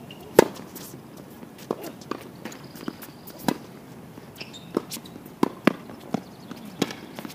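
Tennis rally on a hard court: racket strikes and ball bounces as a string of sharp knocks, the loudest about half a second in, with quick footsteps between them.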